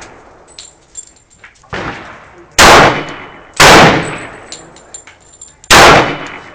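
Pistol shots: three very loud shots, the second about a second after the first and the third about two seconds later, each with a fading echo. A quieter shot comes about two seconds before them.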